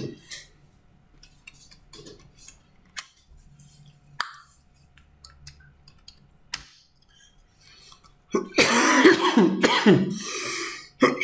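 A few faint, scattered keyboard clicks, then about eight seconds in a person coughs and clears their throat for a couple of seconds.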